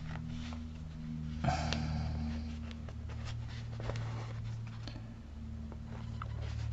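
Fabric rustling and small clicks of a needle and thread being pulled through a stuffed patchwork pin cushion, over a steady low hum. A brief louder rustle comes about a second and a half in.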